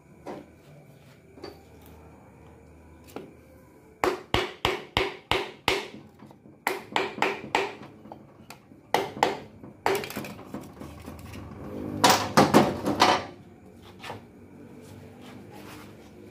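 A piston being tapped down through a piston ring compressor into the cylinder bore of a Mitsubishi 4D56 diesel block, struck through a wooden hammer handle. Sharp wooden knocks come in quick runs, six in a row about four seconds in, then more groups, the densest and loudest about three quarters through.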